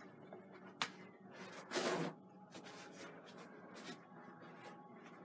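Bristle brush scrubbing oil paint onto canvas in a few short strokes, the loudest about two seconds in, with a sharp tap about a second in.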